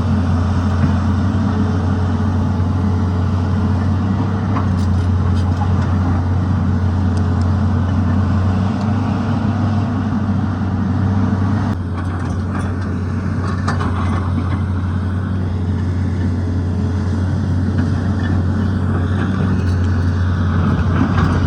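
Excavator diesel engine running steadily, a constant low hum that drops slightly in level just past halfway, with a few faint clicks over it.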